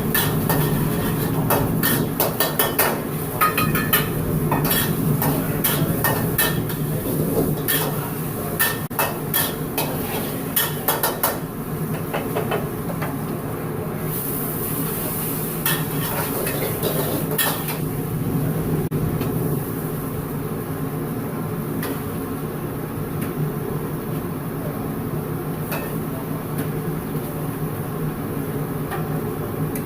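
Metal utensils clattering and scraping against a wok and pans, with many quick strikes in the first dozen seconds and fewer after, over a steady low rumble.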